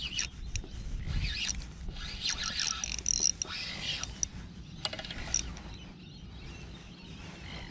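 Spinning reel being cranked to wind in a hooked fish, its gears turning with an uneven whirring and clicking that dies down over the last couple of seconds.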